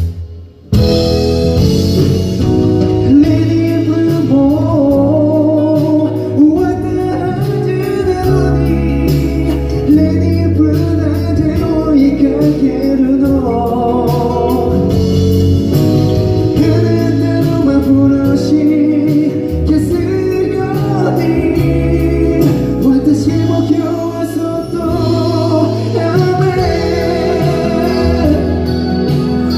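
A male singer singing live into a handheld microphone over instrumental accompaniment, heard through a concert hall's sound system. The music drops out for a moment less than a second in, then carries on.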